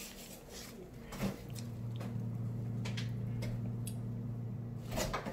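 A click about a second in, then a steady low hum that runs for a few seconds and stops with a couple of clicks near the end.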